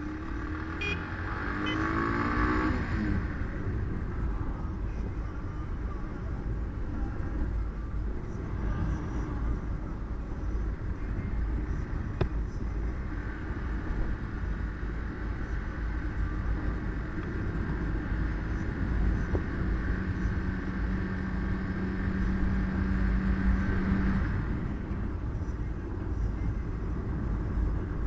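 Car driving along a road: a steady engine and tyre rumble.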